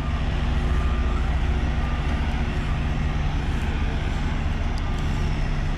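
Heavy construction machinery's diesel engine running steadily, a low even drone with a hum.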